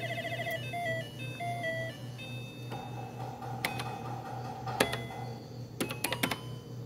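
Electronic beeping of a Mario-themed 'Super Alianza' slot machine. A fast warbling trill from the spin ends about half a second in, then stepped beeps fall away as the chaser light stops. After that a steady electronic tone sounds, with several sharp clicks in the second half as the bet buttons are pressed.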